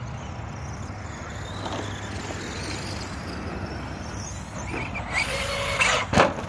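Radio-controlled monster trucks running over dirt jumps, with short motor whines after about five seconds and a sharp knock just after six seconds as one truck tumbles.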